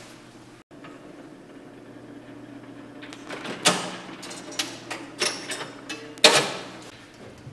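Jukebox record-changer mechanism running with a steady motor hum, then a series of sharp clicks and clunks from about three seconds in, the loudest near the end, as it moves a record into place to play.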